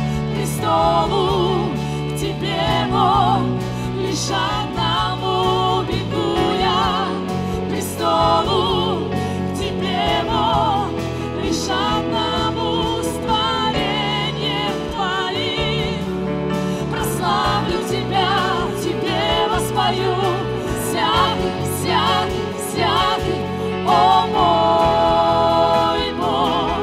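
Live worship band: several singers with vibrato over keyboards, guitars, bass and drums, performing a Russian-language praise song. A long note is held near the end.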